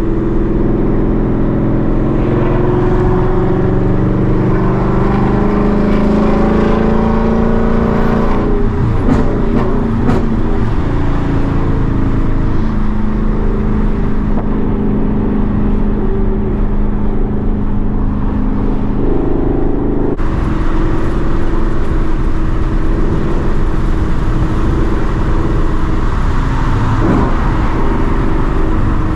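A 2021 Mustang GT's 5.0 Coyote V8 running loud through catless long-tube headers while driving. The engine note climbs slowly at first, shifts about nine seconds in, then mostly holds steady.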